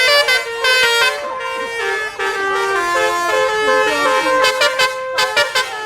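Tunggal Jaya bus's Basuri musical air horn playing a 'telolet' tune of stepping notes, turning into a quick run of short blasts about four and a half seconds in.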